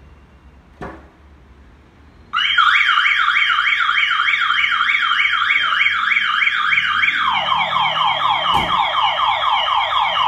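Pandora Light Pro car alarm siren going off on an armed, locked Smart Fortwo: a loud, rapidly repeating rising whoop that switches about five seconds later to a lower sweeping tone. A short click comes a second or so before it starts, and another near the end.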